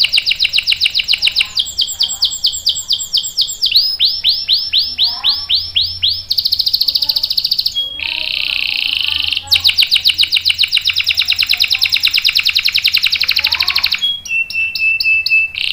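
Canary singing long rolling trills: runs of very rapid, evenly repeated notes, each run changing to a new phrase after a second or two, with short breaks about eight seconds in and near the end.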